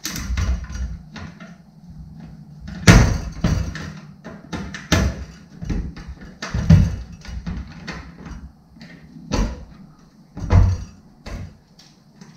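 Screwdriver turning out the bolt that holds a fluorescent light fixture's ballast, with irregular metallic clicks and knocks as the tool and the steel ballast bump against the sheet-metal fixture housing.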